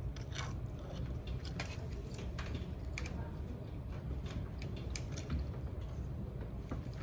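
Scattered light clicks and rattles of small plastic Lego parts as the built parrot model is handled and its movable tail is worked.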